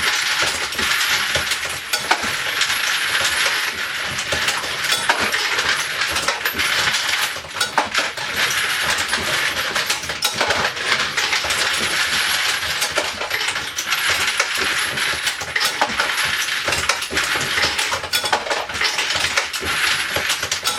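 Continuous metallic clatter of brass cases and bullets jostling in the motor-driven case feeder and bullet feeder of a Dillon XL650 progressive reloading press, with sharper clanks scattered through it as the press is cycled.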